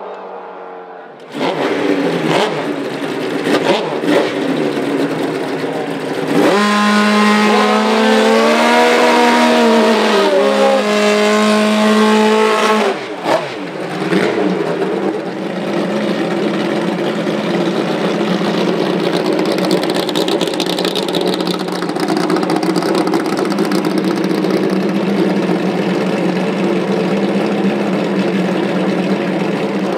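Pro Nitrous drag motorcycle engines at the starting line. Revving hard for several seconds, the pitch rising and falling, then after a brief drop holding a steady fast-idle drone.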